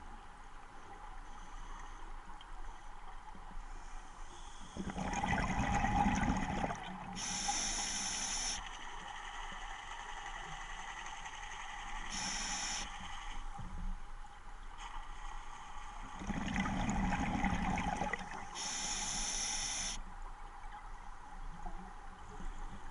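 A scuba diver breathing underwater through an open-circuit regulator. Two noisy bursts of exhaled bubbles come a little over ten seconds apart, each followed by the high hiss of an inhaled breath.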